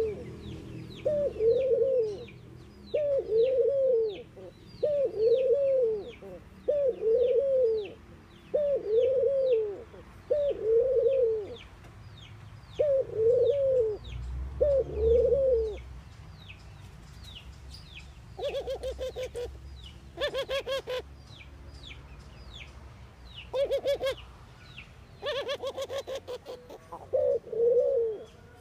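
Collared dove cooing: repeated arched coo notes about every two seconds, then from about 18 seconds in several short bursts of rapid pulsed calls, with coos again near the end. Faint quick high chirps of a small bird repeat in the background through the first half.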